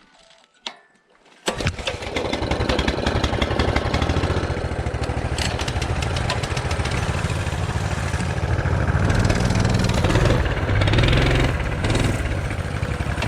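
Small single-cylinder engine of a Tote Gote trail bike starting up suddenly about a second and a half in, then running steadily with a fast even pulse, a little louder near the end.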